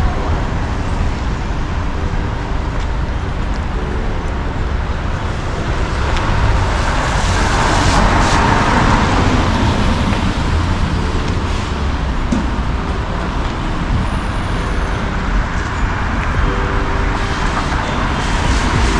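Steady city road traffic: the continuous noise of cars passing along the street, swelling louder for a few seconds about halfway through.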